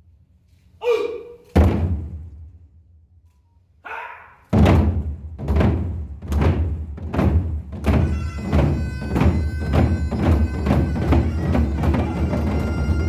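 Ceremonial drum struck in deep, ringing strokes: two separate hits, then a run of beats that speeds up to about three a second. A short pitched call comes about a second in, and a steady high wind-instrument tone joins the drumming about eight seconds in.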